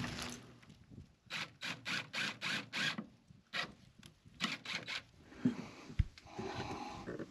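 Cordless drill run in about ten short bursts, its bit working into a wooden door board, with a single knock at about six seconds.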